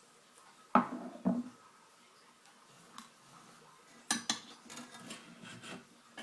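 Metal parts of a dismantled Xbox 360 being handled: two sharp metallic knocks about a second in, then a burst of clattering clinks around four seconds in, with lighter clicks after.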